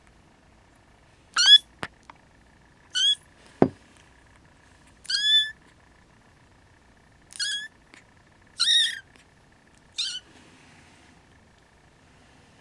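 Siamese kitten mewing: six short, high-pitched mews, each a second or two apart. A single low knock falls between the second and third mew.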